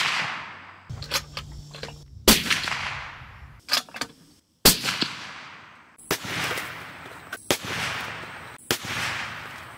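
Suppressed .300 Winchester Magnum bolt-action rifle (Ruger M77 Hawkeye Hunter) firing a string of shots. Each is a sharp report followed by a long echo rolling away over a second or more. The first shots are the loudest and the later ones, near the end, are fainter.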